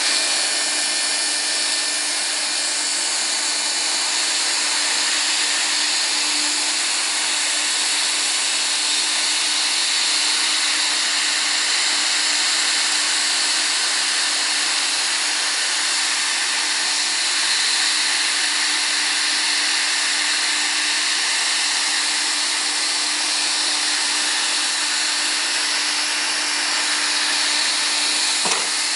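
Bosch hot-air plastic welding gun running steadily: its blower gives an even hiss over a constant low hum while it melts a flat plastic filler strip into a crack.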